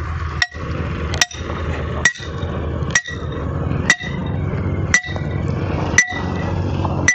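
A hammer striking a steel peg rod, driving it into the gravel sub-base. The blows come evenly about once a second, each a sharp clink with a short metallic ring.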